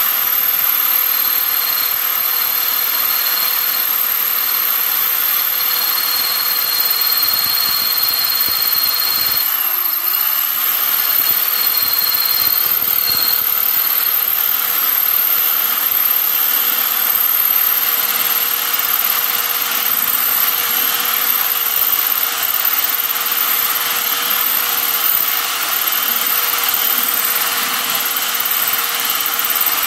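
Electric drill running steadily with a masonry bit grinding through the base of a thick ceramic pot, widening and smoothing a drainage hole. The motor's pitch dips briefly about ten seconds in, then recovers.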